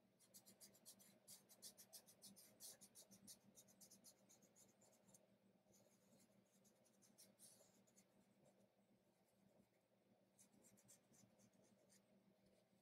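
Faint fingertip rubbing chalk pastel into paper in quick back-and-forth strokes, busiest in the first few seconds, with short runs again about halfway and near the end.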